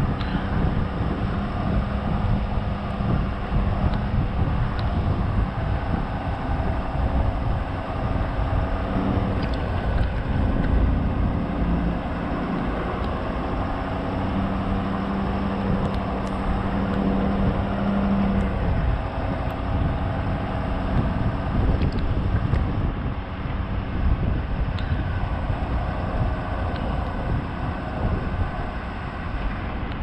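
Plow truck driving slowly, its engine running with a steady rumble of road and wind noise and a hum that shifts pitch a few times.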